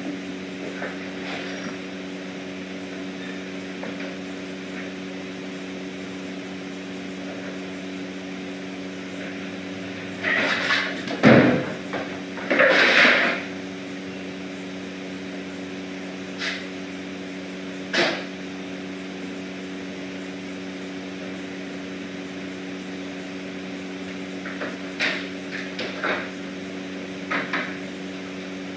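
A steady machine hum in a small room, broken by a scattering of short knocks and bumps. The loudest bumps come in a cluster about ten to thirteen seconds in, with single knocks later on.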